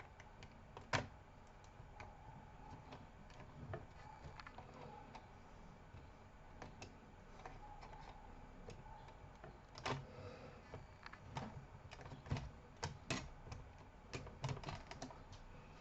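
Scattered light clicks and taps of plastic and metal laptop parts being handled and fitted into the laptop case, with a sharper click about a second in and a quicker run of clicks near the end.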